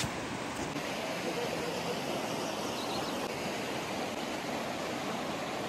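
A river's water rushing steadily over a rocky bed.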